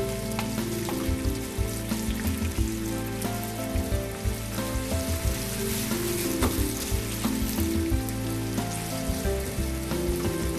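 Sliced onion frying in olive oil in a frying pan, sizzling steadily as it softens, with occasional light taps and scrapes of a wooden spoon stirring it.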